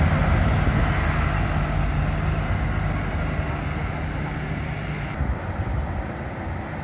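Engines of a van passing close and of loaded trucks climbing the hill, a low steady running that fades as they move away. About five seconds in, the sound cuts to a quieter road with a distant vehicle.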